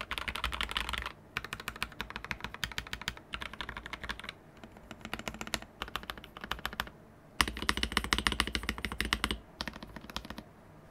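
Typing on a Mark:65 mechanical keyboard with CNC aluminium keycaps, Gateron Red linear switches, an aluminium plate and a polycarbonate case: rapid runs of keystrokes, sparser in the middle. After a brief pause, the loudest fast burst comes about two-thirds of the way through, and the typing stops shortly before the end.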